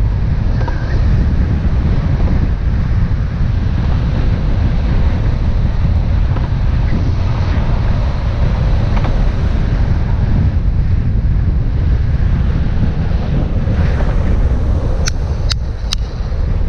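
Wind rushing over a GoPro's microphone during a fast downhill run: a loud, steady rumble heaviest in the low end. Three sharp clicks come close together about a second before the end.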